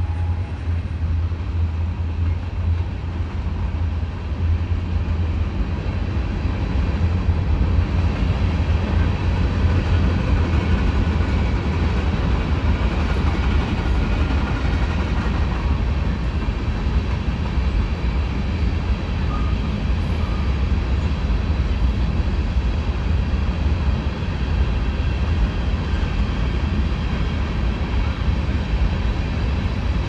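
Norfolk Southern freight train rolling past with a steady, loud low rumble. The last of its diesel locomotives goes by first, then the wheels of tank cars and covered hopper cars on the rails.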